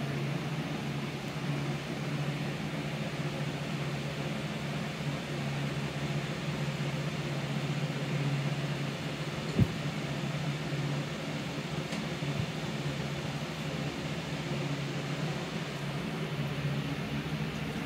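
Steady low machine hum with an even hiss, and one sharp knock about halfway through.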